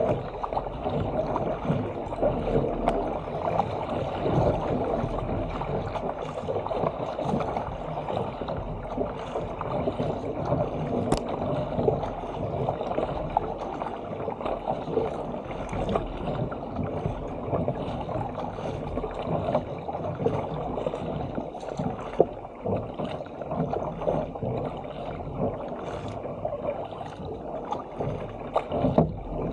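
Seawater splashing and gurgling close against the hull of a Stealth 457 fishing ski and around its paddle as it is paddled downwind over open sea, a steady wash that rises and falls.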